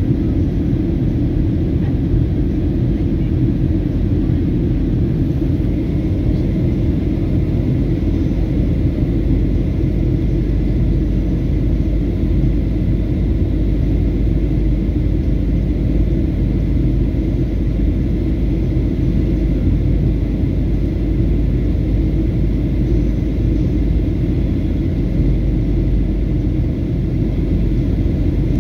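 Steady low rumble inside the cabin of a Southwest Boeing 737 descending toward landing: engine and airflow noise heard from a window seat by the wing.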